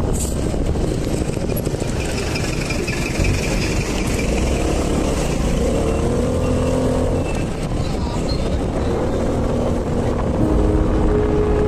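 Vespa 125 scooter running along the road, its engine mixed with dense, steady wind and road noise.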